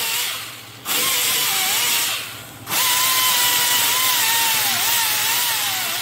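Pneumatic air ratchet on a shop air hose running in three spurts, its hiss of exhaust air carrying a wavering whine that sags under load, as it backs out the bolts of the lawnmower engine's magneto ignition coil.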